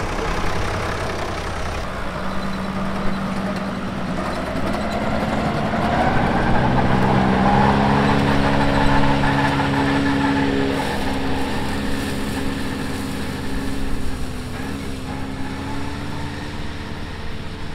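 John Deere tractor pulling a John Deere 630 MoCo disc mower-conditioner through standing hay, engine and mower running steadily. It grows louder as it passes close by around the middle, then fades as it moves away.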